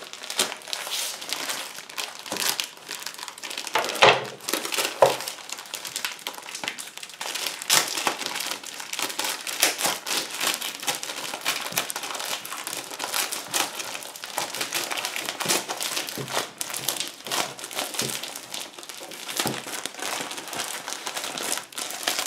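Clear plastic wrapping on a trading card pack crinkling and crackling as it is handled and pulled open. The crackles come in an irregular run, with two sharper, louder ones about four and five seconds in.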